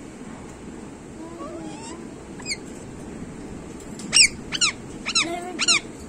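Rose-ringed parakeet calling, agitated. A few quieter warbling notes come first. From about two-thirds of the way in, a quick run of about six loud, sharp shrieks follows, each falling steeply in pitch.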